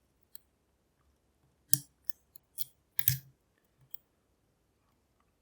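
Lock picks clicking and scraping against the metal of a half euro cylinder shutter lock: a handful of separate sharp metallic clicks, the loudest about two seconds in.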